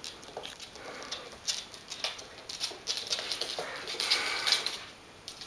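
Claws of a Dandie Dinmont terrier puppy and an adult wheaten terrier clicking and scrabbling on a wooden floor as the two dogs play and run about, with a louder scuffle about four seconds in.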